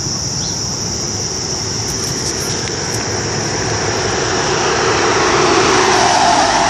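A vehicle's engine and road noise growing steadily louder as it approaches, loudest near the end. A constant high drone of insects runs underneath.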